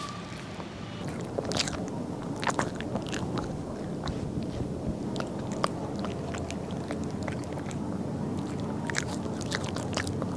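A small dog chewing a stick treat, with irregular sharp crunches starting about a second in.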